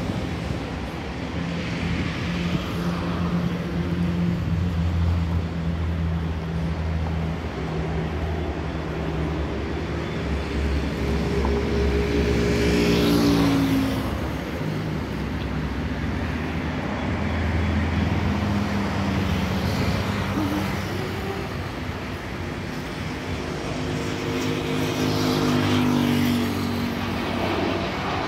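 Road traffic passing close by on an avenue: vehicle engines rising and falling as they go past, with their pitch dropping as they pass about halfway through and again near the end. The jet engines of an Airbus A321 on landing approach are mixed in, growing audible near the end.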